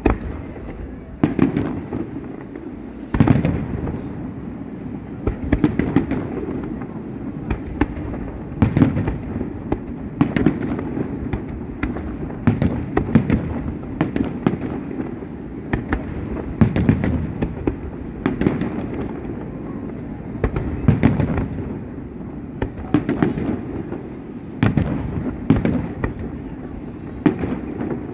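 Fireworks display going off in rapid succession: sharp bangs every second or two, with a continuous low rumble of further explosions between them.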